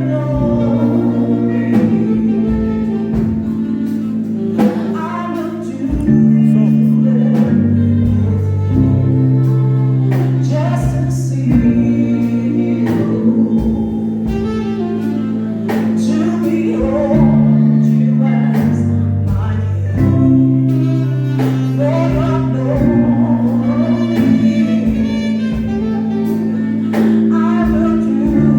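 A solo voice singing a song over instrumental accompaniment with a bass line that changes chord every couple of seconds and a steady beat; the singer's voice is being tried out after a bad cough.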